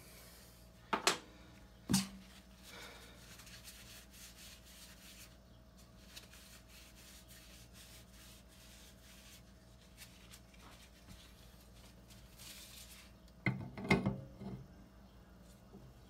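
Faint scratchy scrubbing of a wire brush on metal faucet parts, cleaning crud off the sealing surfaces. Two sharp clicks come about one and two seconds in, and a short cluster of knocks comes near the end.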